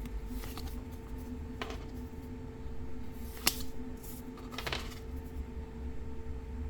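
Trading cards and booster-pack wrappers being handled: a few brief rustles and one sharp click about three and a half seconds in, over a faint steady hum.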